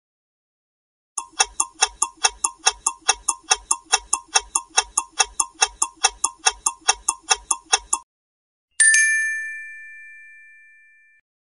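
Countdown-timer clock ticking sound effect, about four even ticks a second for nearly seven seconds before it stops suddenly. Then a bright chime dings once, marking the answer reveal, and fades over a couple of seconds.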